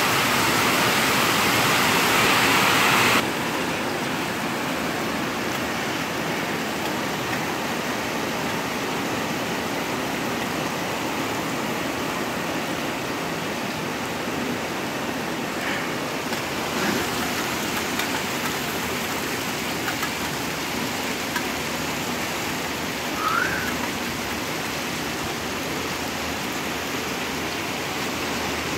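Heavy rain drumming on a tin roof, a steady dense rushing hiss. It is loudest at the start and drops suddenly about three seconds in, then holds even.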